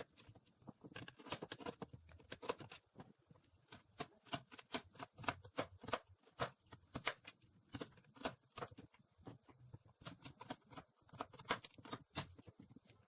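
Knife chopping vegetables on a cutting board: a long run of irregular, quick taps with short pauses between.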